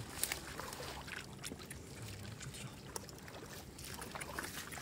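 Shallow muddy water splashing and sloshing as bare hands grab for fish, with scattered short clicks and knocks.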